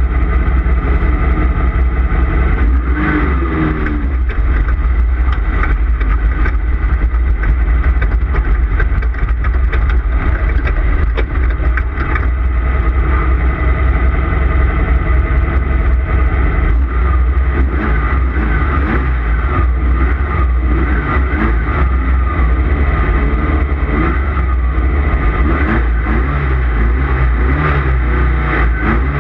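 Off-road race car's engine running hard at racing speed, its revs rising and falling repeatedly over a steady low rumble, with scattered knocks and rattles.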